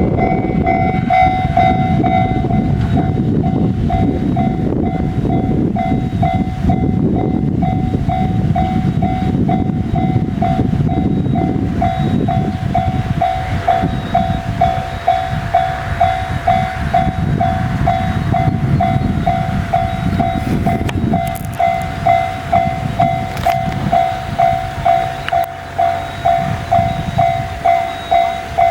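Electronic warning bell of a JR level crossing (the JR standard tone) ringing in steady repeated dings, a little under two a second, while a 211-series electric train runs through the crossing. The train's noise dies away about 20 seconds in, leaving the bell on its own.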